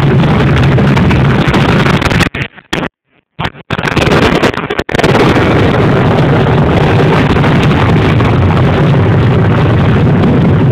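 Loud, steady rumble of the Las Vegas Strip volcano attraction erupting. The sound cuts out for about a second between two and four seconds in, then comes back at full strength.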